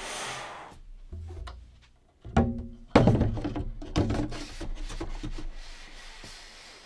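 The 2019 Mac Pro's aluminium outer housing sliding down over the frame. It rubs as it goes on, gives a ringing thunk about two seconds in, and seats with a loud knock just before three seconds, followed by a few lighter knocks.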